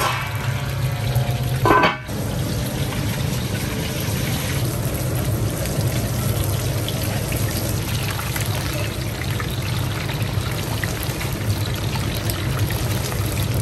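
Hot oil sizzling and bubbling: stingray fillets on a banana leaf on a griddle, then chicken wings deep-frying in a wok, a steady hiss over a low steady hum. A brief louder sound stands out about two seconds in.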